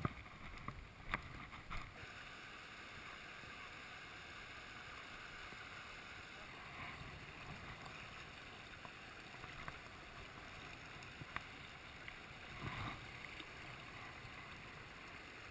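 Water rushing over the rocks of a shallow, fast mountain stream, a steady hiss. A few sharp knocks come in the first two seconds.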